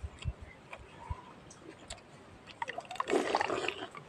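A hand mashing and mixing roti soaked in sheep's milk in a metal plate: wet squelching with small clicks, loudest for about a second near the end.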